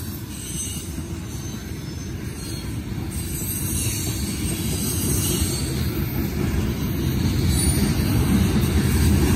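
Empty tank cars of a freight train rolling past, a steady low rumble of wheels on rail that grows louder toward the end.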